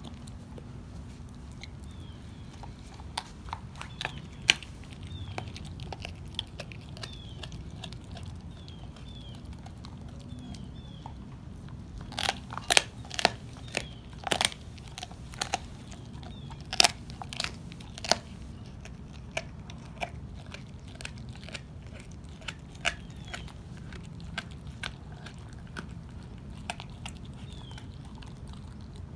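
Dog chewing raw beef ribs, its teeth crunching and cracking the rib bones in scattered sharp crunches, with a run of the loudest cracks about halfway through.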